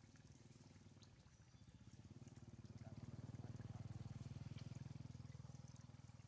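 Faint low, evenly pulsing engine rumble that swells to its loudest about halfway through and then eases off.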